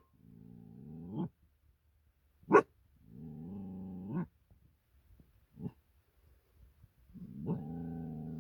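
Belgian Malinois puppy growling in three long low growls, the first two rising at their ends, with a sharp bark about two and a half seconds in and a shorter one a few seconds later.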